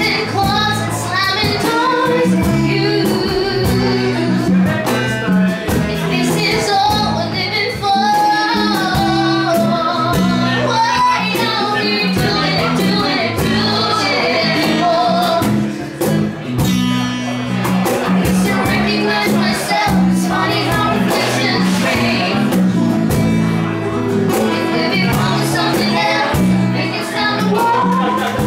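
Live music: a woman singing lead into a microphone, accompanied by guitars.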